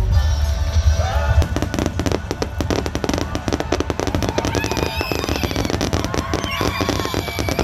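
Fireworks display: a rapid, dense string of bangs and crackles from the shells, with deep booms through the first second and a half. Some held and gliding tones sound over the crackle.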